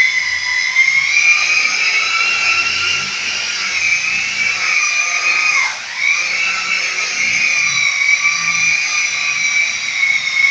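The motor of a corded handheld electric power tool whining steadily as it is worked against a burnt-cement wall finish. Its pitch wavers with the pressure and sags sharply about six seconds in, then picks back up.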